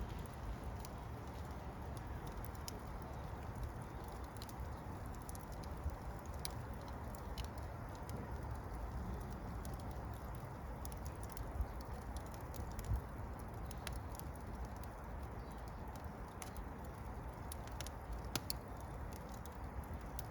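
Fire crackling: scattered sharp snaps and pops over a steady low rush.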